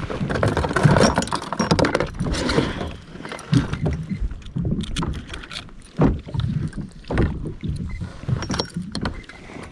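Irregular knocks and clatter on a fishing kayak's hull, with water sounds, as gear is handled aboard.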